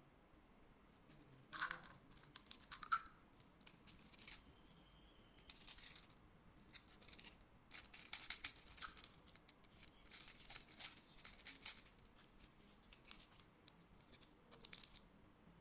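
Plastic snack wrappers crinkling and being torn open, in short irregular bursts of crackle with brief pauses between.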